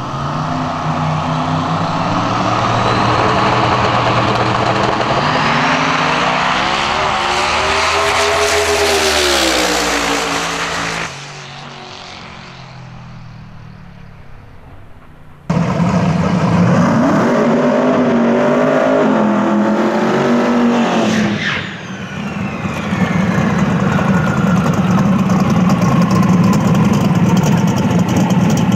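Mustang drag race car's engine at full throttle, its pitch climbing and dropping again and again. About eleven seconds in it gives way to a quieter stretch, then it is loud again from about fifteen seconds. After a brief dip it runs on steadily with a whine falling slowly in pitch.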